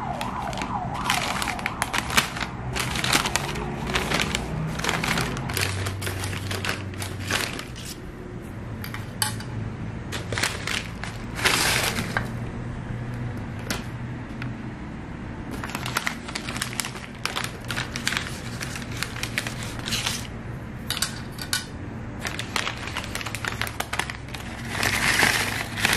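Paper snack bags rustling and crinkling while fried squid rings are shaken out of them onto a ceramic plate, with a few louder rustles.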